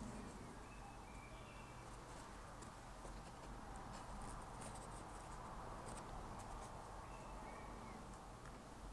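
Faint handling sounds: soft clicks and rustles as the paper-like vacuum cleaner bag fabric is pinched along its edge with needle-nose pliers, over a low steady hum.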